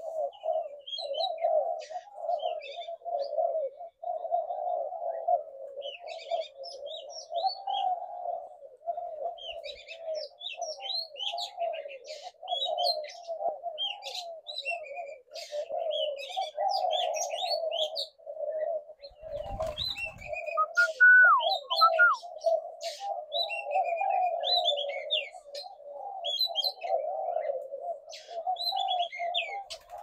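A flock of spotted doves cooing at once, an unbroken chorus of overlapping low coos, with many small birds' short high chirps over it.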